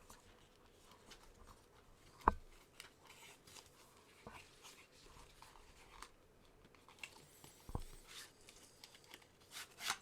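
Cardboard box and packaging being handled and opened: faint rustling and scraping, with a sharp knock about two seconds in and a few softer knocks later.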